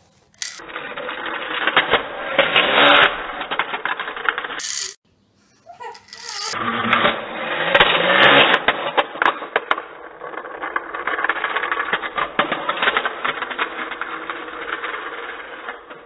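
Plastic toy car rolling and tumbling on a hardwood floor: a dense, rattling clatter of wheels and body slowed down to a low, drawn-out sound in slow-motion playback. It drops out briefly about five seconds in, then clatters on and fades near the end.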